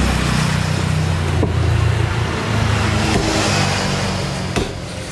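A motor vehicle's engine running close by, a loud low hum that dies down about four and a half seconds in.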